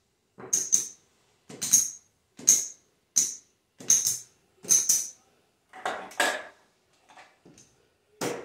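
Casino chips clacking against each other as they are set down on a craps layout: about eight sharp, ringing clicks, roughly one every 0.7 seconds, the last a little after eight seconds in.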